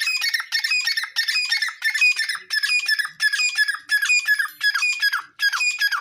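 Grey francolin calling: a loud, rhythmic series of harsh, shrill notes, about two a second. The later notes end in a falling slide.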